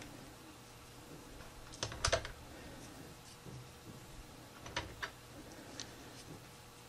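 Little Playmobil toy cans being stacked back onto the game's shelf: scattered light clicks and taps, a few together about two seconds in and again around five seconds in.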